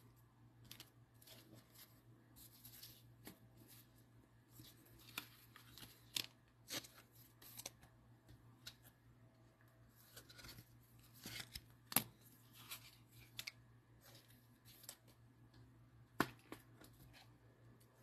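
Faint handling of trading cards and plastic card holders: soft rustling and sliding with scattered light clicks, the sharpest about twelve and sixteen seconds in, over a steady low hum.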